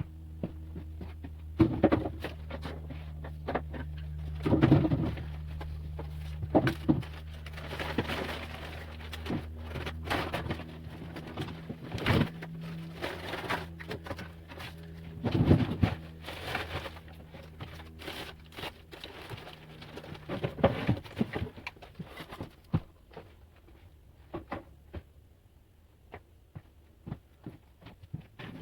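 Irregular knocks, thuds and clatter of objects being handled and set down while clearing a cluttered workshop, over a steady low hum that fades in the second half.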